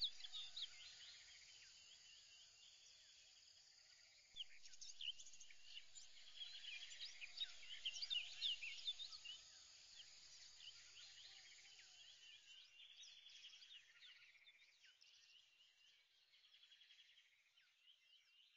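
Faint birdsong, many short high chirps overlapping, with a steady insect-like trill at times, fading out near the end.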